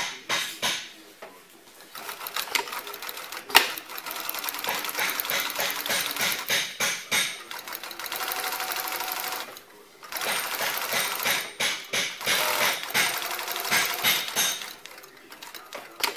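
Off-arm zig-zag industrial sewing machine with walking-foot top and bottom feed and an Efka DC motor, stitching with a fast, even needle rattle. It stops briefly about halfway, starts again, and stops near the end, with a few sharp clicks along the way.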